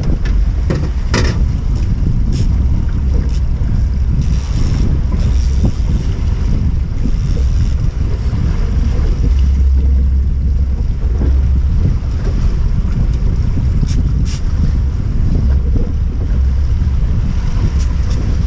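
Strong wind buffeting the microphone over the wash of choppy waves around a small boat, with a few sharp clicks.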